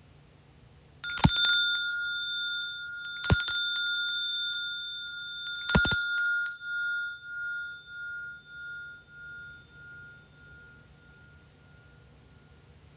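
Altar bell rung three times, each a short jangle of quick strikes that leaves a ringing tone fading away over several seconds. It marks the elevation of the chalice at the consecration of the Mass.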